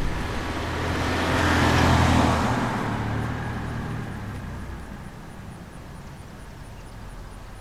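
A vehicle passing by: a rushing swell of road noise that peaks about two seconds in and fades away over the next few seconds.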